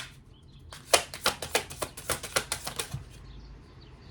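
A tarot deck being shuffled by hand: a quick run of card snaps and flutters, about six or seven a second, starting about a second in and stopping after about two seconds.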